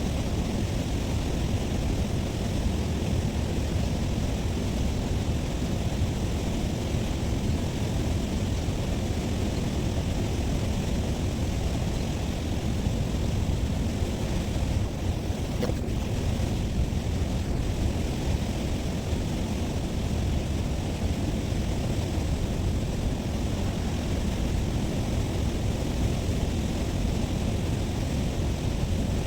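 Wind buffeting the microphone, a steady low rumble of noise.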